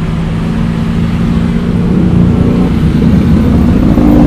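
A motor vehicle's engine running, getting steadily louder.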